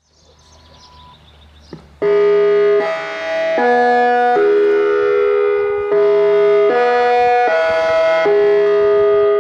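Federal Signal EOWS 1212 electronic outdoor warning siren playing a chime melody through its loudspeaker array. It starts loud about two seconds in, with notes of roughly three-quarters of a second each in phrases of four, the fourth held longer.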